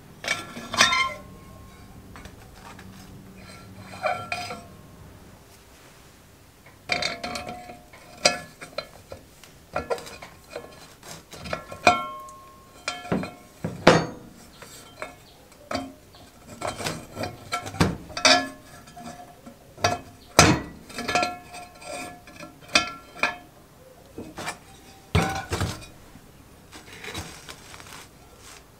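Rusty cast-iron Dutch oven being handled: its metal bail handle clinks and rattles against the pot's cast ears and rim, in many short ringing metallic clinks at irregular intervals.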